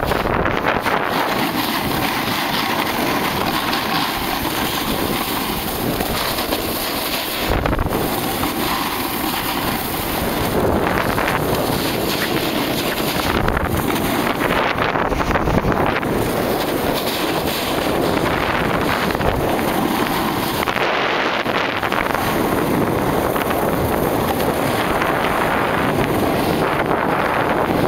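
Wind rushing over a handheld camera's microphone while snowboarding downhill, mixed with the board sliding over hard snow. The noise is loud and steady, with small swells.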